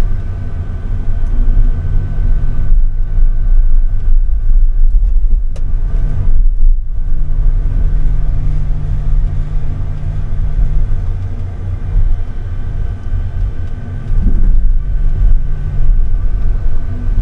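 Timber truck's diesel engine and hydraulic loader crane running as the grapple works logs: a steady low rumble with a thin constant whine, its level rising and falling and dipping briefly about six seconds in and again around thirteen seconds.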